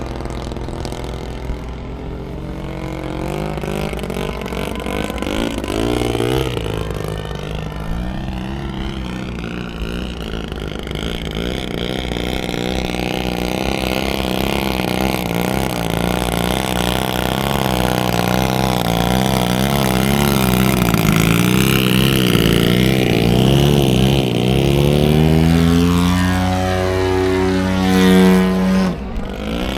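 Radio-controlled model airplane's engine running through aerobatic manoeuvres, its pitch wavering and gliding up and down as the plane climbs, dives and passes by. Near the end the pitch rises and holds high, then drops away briefly.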